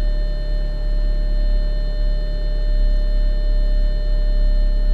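Audi A4 engine idling as a steady low rumble, with a constant high-pitched whine of several thin steady tones over it.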